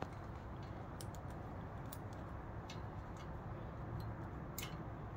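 A few scattered light clicks and ticks of the fruit picker's parts being handled as a bolt is tightened by hand, over a low steady background hum.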